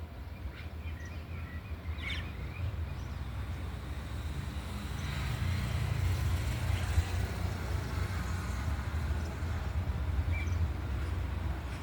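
Boeing 767 freighter's jet engines heard from a distance: a low rumble that grows louder about halfway through. A few short bird chirps come through near the start and near the end.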